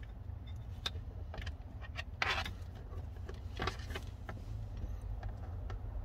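Small plastic-and-metal clicks and scrapes as long-nose pliers push a blade fuse into the lower slot of an add-a-circuit fuse tap. Two louder scraping snaps come about two and three and a half seconds in, over a steady low hum.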